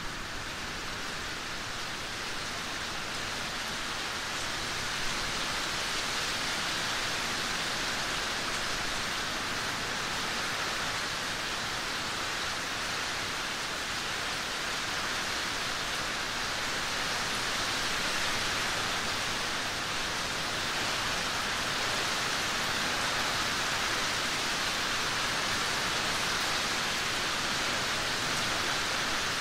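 Steady rain: an even, unbroken hiss with no single drops or thunder standing out.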